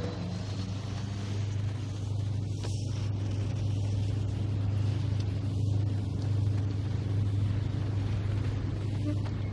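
A boat's engine running with a steady low drone, under a faint even hiss.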